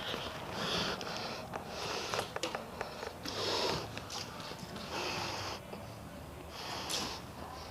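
A person breathing audibly close to the microphone, with about five breaths, roughly one every second and a half.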